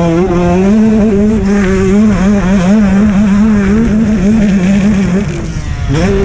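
Two-stroke motocross bike engine held at high revs under throttle, its note wavering as the bike bounces over the dirt. About five seconds in the throttle is shut and the revs fall, then it is opened hard again and the revs climb sharply near the end.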